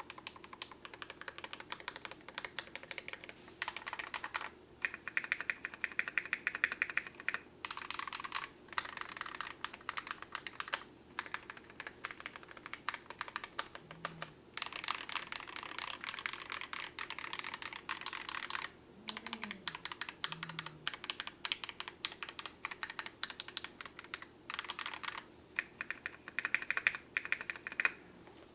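Typing sound test on a custom Tofu65 V3 65% keyboard with a brass plate, Akko switches and KAT-profile PBT keycaps: rapid key clacks in bursts of continuous typing, broken by short pauses.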